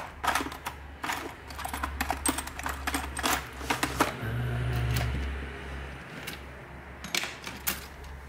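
Small hard objects clicking and clattering: tools being rummaged through on a workbench while a pointing tool is picked out. A brief low rumble comes a little past four seconds in.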